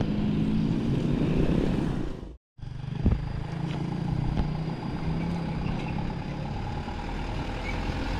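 Road traffic engines: motorcycles running past, then after a brief drop-out a light dump truck's diesel engine approaching and driving by, its low rumble growing louder toward the end. A single sharp knock about three seconds in.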